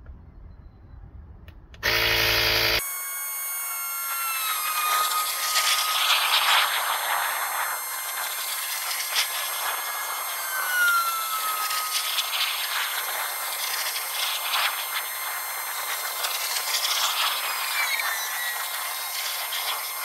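Portable battery tire inflator's electric air compressor switching on about two seconds in, running loud and steady while pumping up a car tire toward 36 PSI. A second later the sound turns thin and high-pitched, with gliding tones, as the run is sped up.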